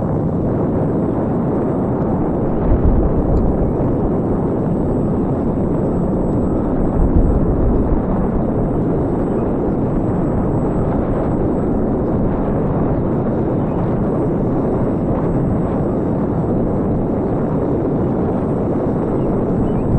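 Steady rush of wind on the microphone of an RC glider flying, with low buffeting gusts about three and seven seconds in.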